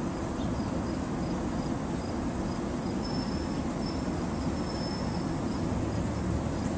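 Faint, high insect trill coming and going in short pulses, clearest in the middle, over a steady low outdoor rumble.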